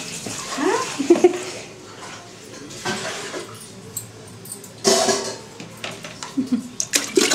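Clinks and knocks of a bath mug with brief splashes of water during a baby's bath, with a few short voice sounds in between. The loudest splash-and-knock comes about five seconds in.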